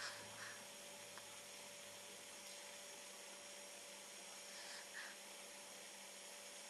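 Very quiet room with a faint steady electrical hum, and a sleeping baby's soft breaths sounding a few times.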